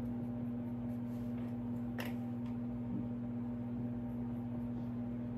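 Steady low electrical hum, with a single light tap about two seconds in.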